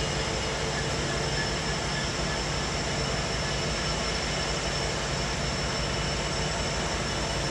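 Amtrak F59PHI diesel-electric locomotive standing and running steadily, its EMD 12-cylinder two-stroke diesel giving a constant drone with a steady high whine over it.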